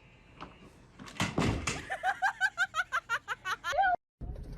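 A person laughing in a quick run of short, high-pitched "ha" sounds, about six a second, cut off suddenly near the end.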